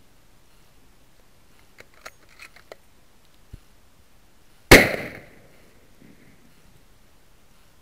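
A single loud rifle shot from a scoped bolt-action hunting rifle, about two-thirds of the way in, with a short trailing echo. A few faint clicks of the rifle being handled come before it.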